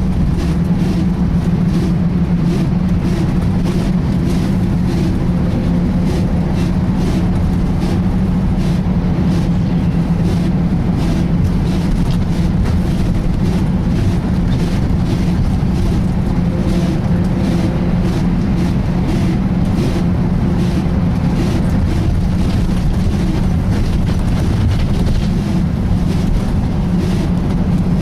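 Volvo B10BLE single-deck bus heard on board while under way: a steady, loud drone from the driveline over road rumble, carrying the loud "sweeping" noise that marks a serious fault on this bus.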